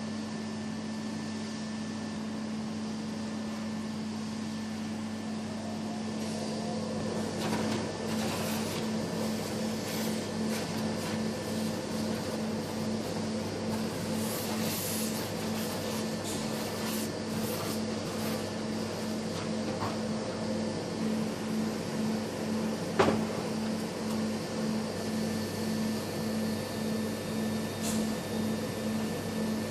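Steady hum of powder 3D printing machinery, which starts pulsing about twice a second roughly a quarter of the way in. Over it come intermittent hisses of a suction nozzle drawing loose white plastic powder off a freshly printed part, and a single sharp knock about three-quarters through.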